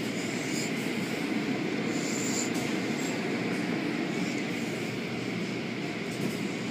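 Automatic tunnel car wash machinery running: a steady mechanical rumble with water spraying as the hanging cloth curtains swing over a car.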